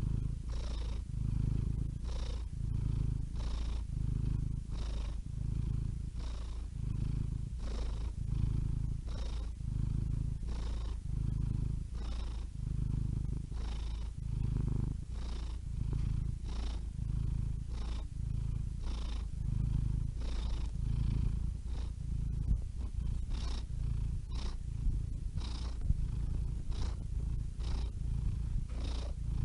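Domestic cat purring steadily and close, the low rumble pulsing with each in and out breath, with a soft breathy hiss on every breath.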